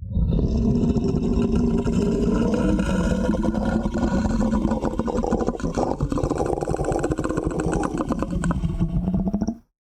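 Monster growl performed with a human voice: one long, continuous growl with a fast rattle, lasting nearly ten seconds, starting abruptly and dying away just before the end.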